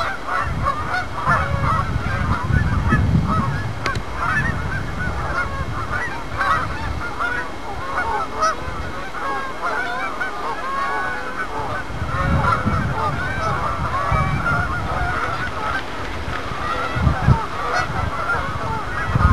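A large flock of geese honking continuously, many short overlapping calls at once as the birds take off and fly. Low rumbles come and go underneath.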